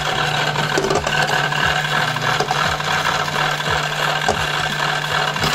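Motorized spinning disc of a Beyblade Speedstorm Motor Strike stadium running with a steady low hum, while a spinning Beyblade top whirs and knocks against the plastic stadium every half second or so.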